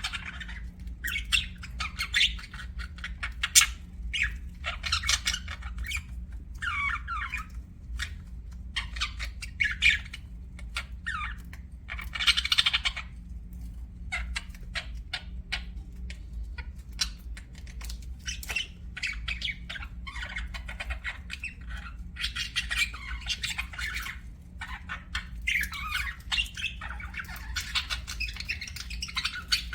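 Pet budgerigars chirping and chattering in quick, irregular bursts of high squawks and trills, over a steady low hum.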